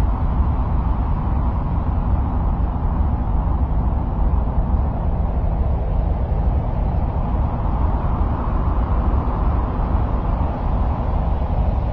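Steady, unbroken noise, deep and rumbling, heaviest in the bass with a softer band in the middle: an ambient noise track presented as the sound of Mars.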